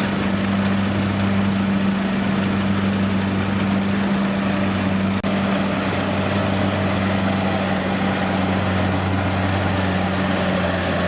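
Combine harvester's diesel engine running steadily with a constant low hum, and a brief click about halfway through.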